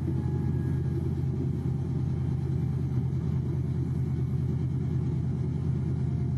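Steady drone of a helicopter engine: a low, even rumble that holds one pitch without rising or falling.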